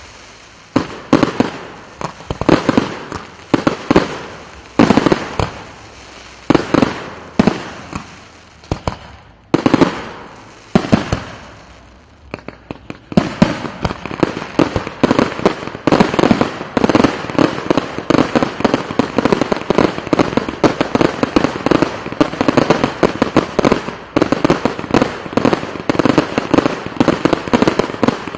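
Aerial fireworks going off: separate sharp bangs, each trailing away, roughly once a second, a brief lull about twelve seconds in, then a rapid, nearly continuous barrage of reports.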